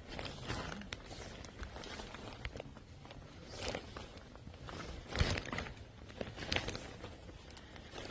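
Footsteps of a hiker climbing a mountain trail, coming as irregular scuffing steps with the loudest about five seconds in.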